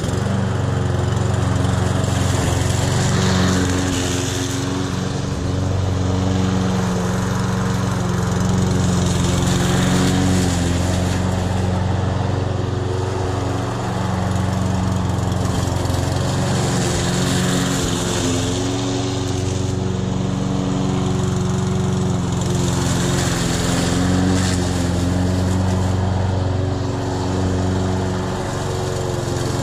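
Cub Cadet 190cc self-propelled walk-behind lawn mower's single-cylinder engine running steadily while mowing tall grass and weeds, its loudness rising and falling slightly as it moves.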